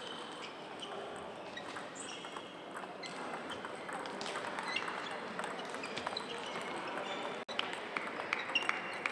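Table tennis balls clicking off bats and tables in a large hall, from several tables at once, over a steady murmur of room noise. A few louder clicks come near the end, and the sound drops out for an instant about seven and a half seconds in.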